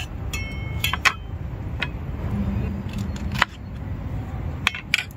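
Cleaver cutting through clusters of beech mushrooms on a wooden cutting board: a handful of irregular sharp knocks as the blade meets the board, over a low steady rumble.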